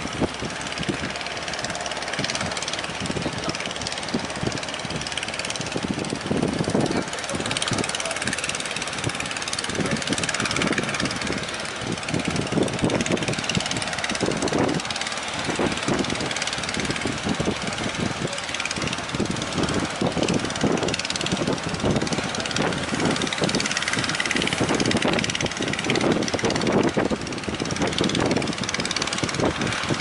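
Small fishing-boat engines running steadily amid waves breaking in rough surf.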